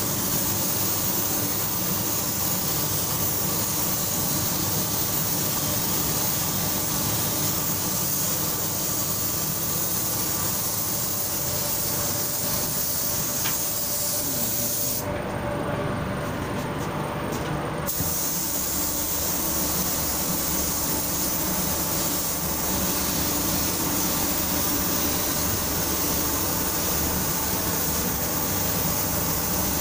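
Compressed-air paint spray gun hissing steadily as it sprays paint, over a steady low rumble. The hiss breaks off for about three seconds midway, then resumes.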